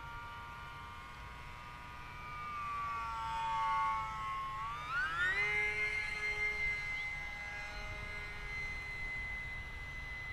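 Electric motor and propeller whine of an E-Flite UMX Pitts S-1S micro RC plane in flight on a 3-cell battery. The steady whine sags slightly, then rises sharply in pitch about five seconds in as the motor speeds up, and holds at the higher pitch.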